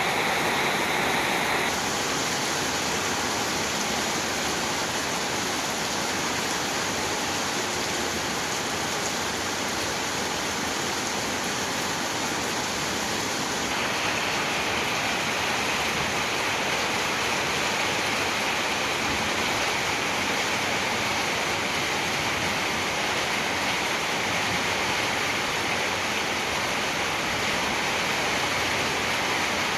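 Heavy rain pouring down steadily in a thunderstorm, a dense, even hiss.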